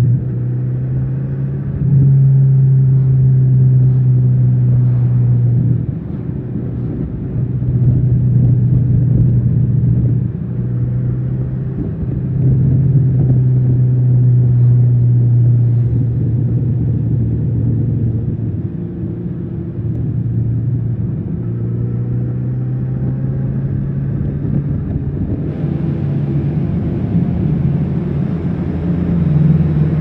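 Kawasaki Z900RS's inline-four engine and exhaust under way. It pulls at a steady note for stretches, easing off and picking up again several times, and grows louder and brighter near the end.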